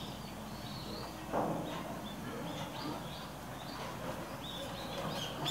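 Small birds chirping in short, repeated calls over quiet outdoor background noise, with one brief louder scuffing noise about a second in.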